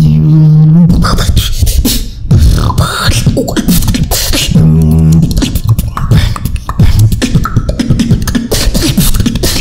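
Solo human beatboxing: a held low hummed bass note that stops about a second in, then a fast run of mouth-made kicks, snares and clicks, with another held low note a little past the middle.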